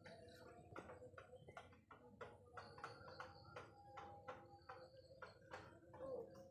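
Faint footsteps on a dirt garden path, a soft tap about two or three times a second, with light clicks from handling the phone while walking. A faint high, steady insect trill, typical of crickets at dusk, comes in about two and a half seconds in.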